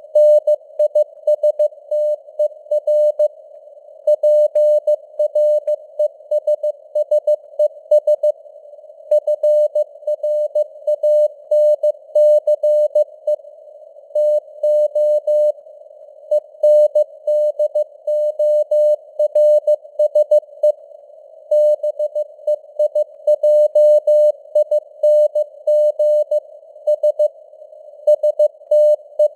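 Morse code (CW) sent at 15 words per minute: a single steady mid-pitched tone keyed on and off in dots and dashes, over a narrow band of hissing radio noise, with the signal strength fading up and down (QSB). Longer pauses fall between words a few times.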